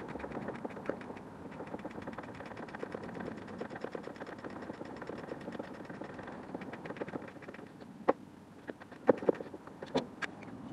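Socket ratchet clicking rapidly as a bolt is undone, followed by a few sharp metallic clinks near the end.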